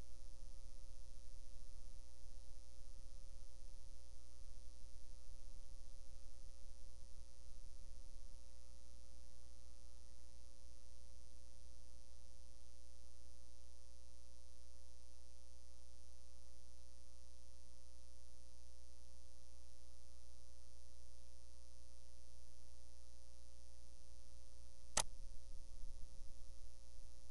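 Steady electrical hum with a few faint steady tones over quiet room tone, and a single sharp click near the end.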